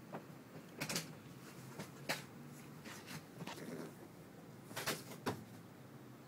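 Irregular knocks and bumps, about six sharp ones spread over a few seconds.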